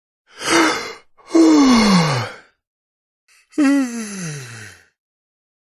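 A man yawning: a breathy in-breath, then a voiced out-breath that slides steadily down in pitch. A second yawn with the same falling slide comes about three and a half seconds in.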